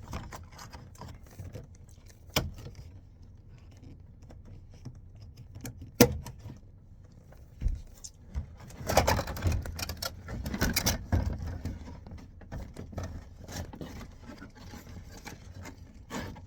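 Hand work on a truck's door trim: scattered sharp clicks and knocks of tools and plastic parts, the loudest about six seconds in, then a couple of seconds of rattling and scraping.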